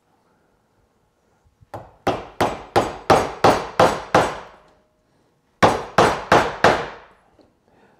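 Mallet striking a chisel, chopping waste out of a half-blind dovetail socket across the grain. The blows come about three a second, a run of about eight, a pause, then four more.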